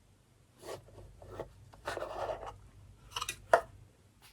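A small cardboard jewelry box and its paper packaging being handled and opened: short scrapes and rustles, a longer rustle about two seconds in, and a few sharp clicks near the end, the last the loudest.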